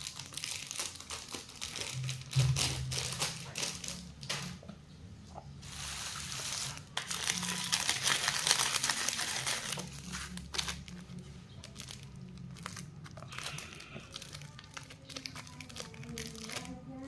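Lollipop packaging being handled and unwrapped, crinkling and crackling, busiest and loudest in the middle stretch.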